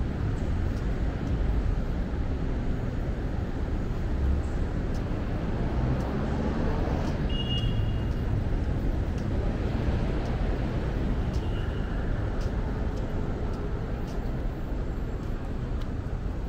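Steady city street traffic noise: vehicles passing with a continuous low rumble, and two brief high tones, one about halfway through and another a few seconds later.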